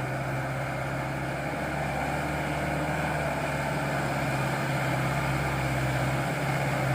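Hino Dutro light truck's diesel engine pulling steadily under load up a steep climb, one unchanging low drone that grows slowly louder as the truck comes closer.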